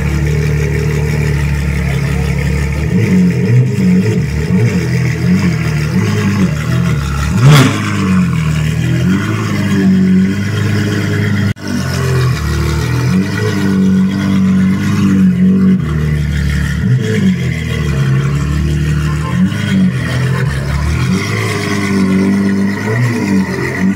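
Ferrari 812 GTS's V12 idling steadily, then blipped again and again, the revs rising and falling in short bursts. There is one sharp, loud bang about seven seconds in.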